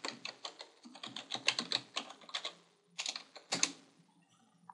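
Typing on a computer keyboard: a quick run of keystrokes, then a couple of louder key presses about three seconds in.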